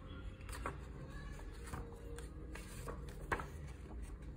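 Pages of a thick hardcover comic omnibus being turned by hand: soft paper rustles and a few short page flicks, the sharpest a little after three seconds in.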